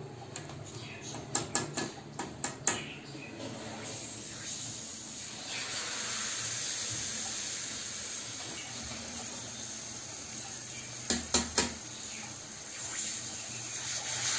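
A spoon clinking several times against a steel bowl of batter, then a steady sizzle as unniyappam batter is dropped into hot oil in an unniyappam pan. A few more sharp spoon clinks come about eleven seconds in, over the sizzle.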